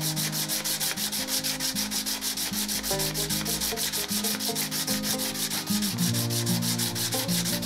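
240-grit sandpaper rubbed by hand in quick, even back-and-forth strokes over the metal surround of a spirit level's glass vial, with light pressure so as not to break the vial.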